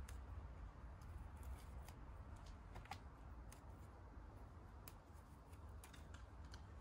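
Faint, scattered clicks and snaps of mint stems being pinched off by hand, over a low steady rumble.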